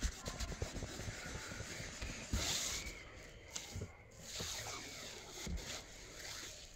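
A fingertip rubbing pencil graphite into paper, blending the shading in quiet, uneven strokes, with a brief louder stroke about two and a half seconds in.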